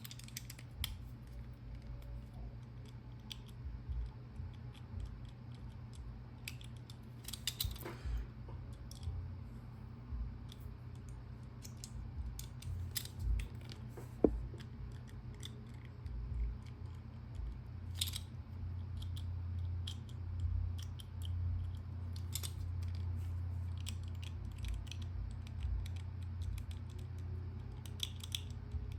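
Scattered light clicks and ticks from a four-dial Master Lock combination padlock, as its number wheels are turned and its shackle is held under tension to feel for the gates while decoding it. A steady low hum runs underneath.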